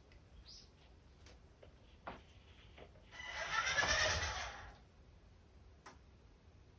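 Radio-controlled toy car's electric motor and gears whirring in one short drive of about a second and a half, with a low rumble of wheels on the floor; a few faint clicks come before it.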